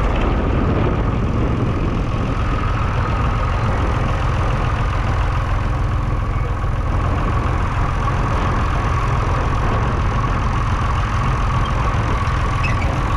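2.5-litre three-cylinder diesel engine of a 1969 Massey Ferguson 20 Industrial tractor running steadily.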